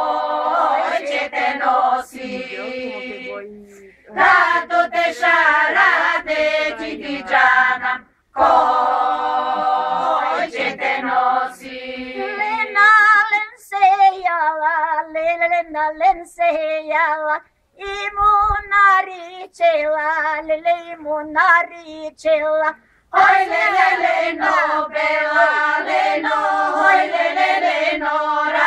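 Group of Bulgarian village women singing a folk song unaccompanied, in phrases of a few seconds broken by brief pauses.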